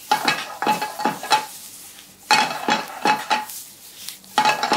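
Vegetables being stir-fried over high heat: a metal utensil clatters and scrapes against a frying pan in three quick bouts, each about a second long. A faint sizzle runs between the bouts.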